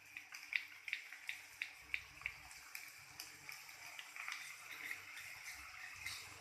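Lemon squeezed by hand over rice: a quiet run of small wet drips and ticks, roughly two a second, as the juice falls.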